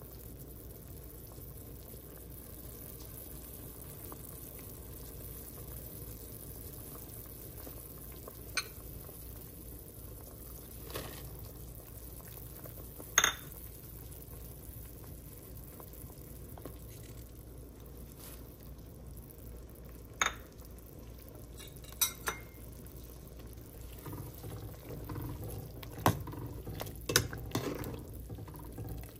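Soup simmering in a stainless steel pot under a steady low background noise, with occasional sharp clinks of metal utensils against the pot, the loudest about 13 seconds in. Near the end a ladle stirs the soup, clinking several times against the pot.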